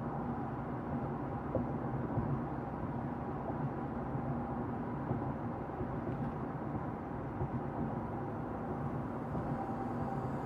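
Steady drone of a vehicle on the move, a low, even rumble of engine and road noise with faint constant hum tones running through it.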